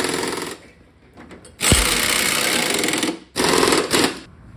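Impact wrench hammering bolts tight in three runs: the first stops about half a second in, the second starts with a knock a little before two seconds, and a short third comes near the end. It is running down the bolts that hold a suspension lift spacer in place.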